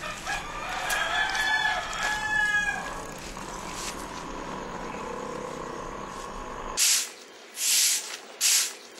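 A rooster crowing: a drawn-out, broken call in the first few seconds. After an abrupt change near the end, several short bursts of hissing noise follow.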